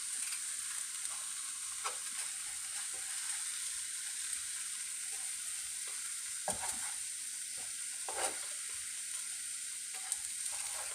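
Egg omelette sizzling steadily in a frying pan on medium heat, with a couple of soft knocks about six and eight seconds in.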